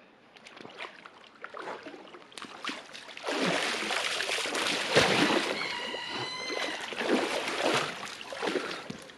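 River water splashing and sloshing as a person wades through it and splashes water over his face, loudest from about three seconds in, with a short cry partway through.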